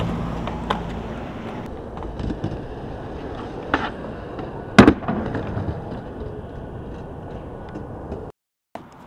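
Skateboard wheels rolling over pavement, with a few clicks and a loud double crack of the board striking the ground about five seconds in. The sound cuts out briefly near the end.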